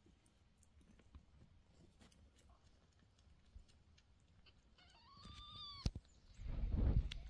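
A cat's single short, high-pitched mew about five seconds in, followed by a sharp click and then a loud low rumbling from about six and a half seconds.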